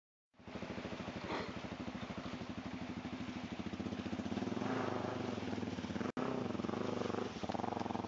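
Dirt bike engine running with a rapid, even beat, revving up about halfway through and again near the end.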